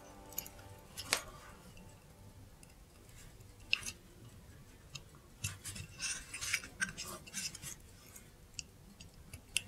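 Light, irregular clicks and metallic taps of small tools and parts being handled during hand work on a mechanical clock, with a busier cluster of them in the second half.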